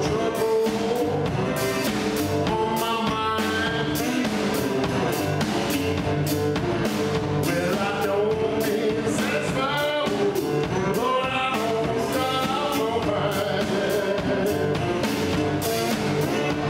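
A metal-bodied resonator guitar picked in a country blues style, with a man singing over it.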